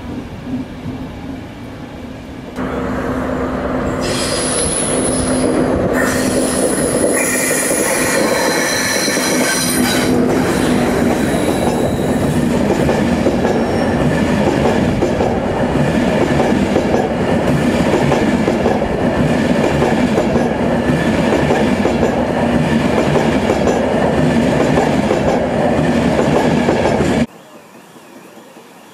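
InterCity 225 train's Mk4 coaches rolling past close by on curved track, the wheels squealing in high-pitched tones for several seconds, then a steady loud rumble of wheels on rail that cuts off suddenly near the end.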